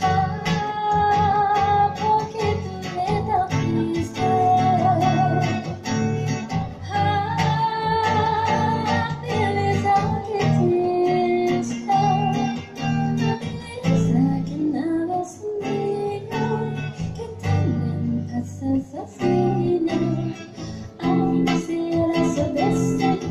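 A woman singing, her held notes wavering with vibrato, with an electric guitar accompanying her.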